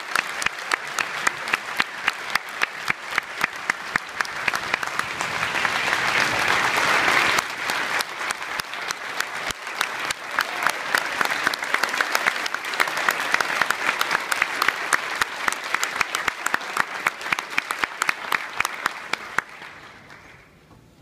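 Large audience applauding in a standing ovation, with one person's regular sharp claps standing out close by. The applause swells over the first few seconds and dies away near the end.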